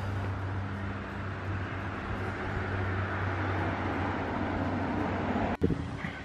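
Steady outdoor background noise: a low hum under an even rushing noise, broken by a sharp momentary dropout near the end.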